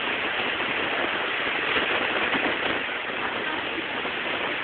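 Indistinct voices of several people over a steady rushing noise.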